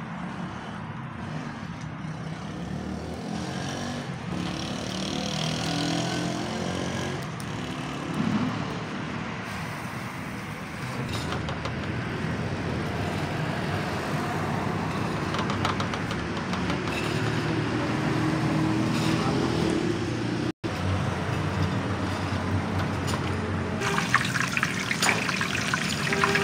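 Steady rushing, rumbling outdoor noise with a low engine-like hum in places. In the last couple of seconds come quick metal clinks and scrapes of a steel strainer ladle against a wok.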